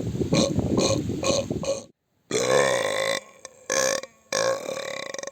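A person's burps, one after another: a long drawn-out belch ends about two seconds in, then after a brief break come a shorter burp, a quick little one, and another long burp.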